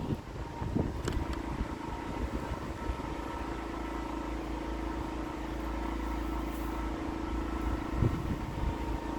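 An engine running steadily, a constant drone with a steady hum.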